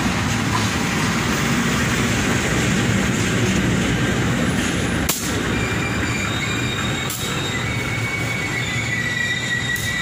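A CC 201 diesel-electric locomotive passes close by, then its passenger coaches roll past with steady, loud wheel-and-rail noise and a few sharp clicks. In the second half a high, thin wheel squeal sets in as the train slows for its station stop.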